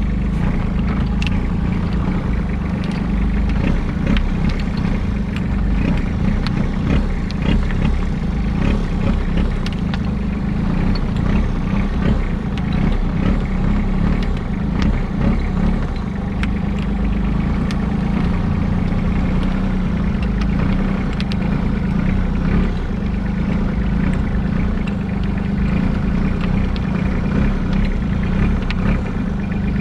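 Engine of a small fishing boat running steadily under way, a continuous low hum.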